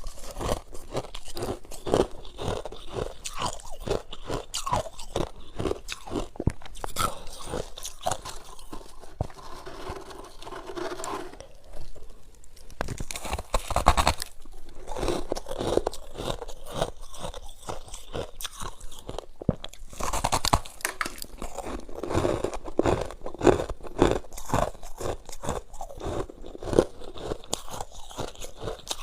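Close-miked crunching and chewing of freezer frost, a rapid run of crackles and squeaks as mouthfuls of soft, packed ice are bitten and chewed.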